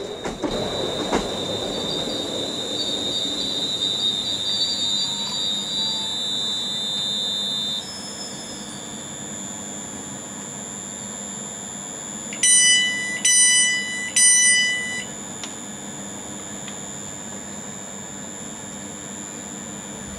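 Class 350 Desiro electric multiple unit at a station platform: a steady high-pitched whine over a low rumble, which stops about eight seconds in. Midway, three loud short electronic beeps sound about a second apart.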